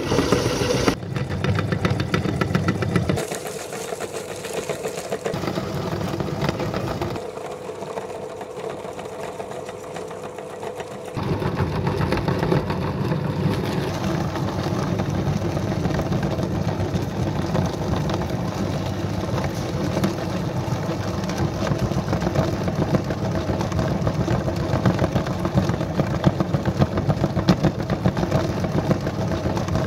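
Electric motor-driven meat grinder switched on and running steadily while it grinds fish, a dense mechanical hum and churn. The sound changes abruptly a few times in the first ten seconds or so, then runs evenly.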